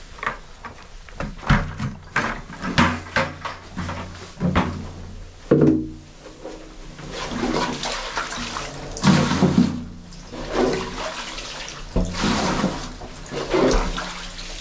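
Wet scraping and sloshing as a scraper scoops oily sludge off the steel floor of an emptied oil tank and tips it into a plastic bucket, with irregular knocks and scrapes, echoing inside the tank.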